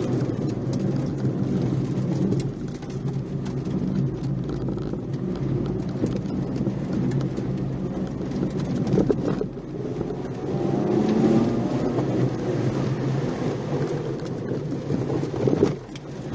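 Nissan March 12SR's 1.2-litre four-cylinder engine running under load, its pitch rising and falling as the car is driven, with brief drops about nine seconds in and again near the end, as at gear changes or lifting off. A steady low rumble of tyres and road noise with occasional knocks runs under it.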